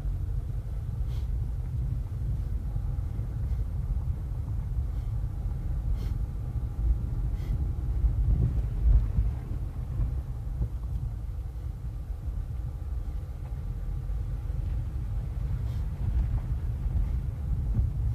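Steady low rumble of a car's tyres on an unpaved dirt road, heard inside the cabin, with a few faint clicks and a brief swell about eight seconds in.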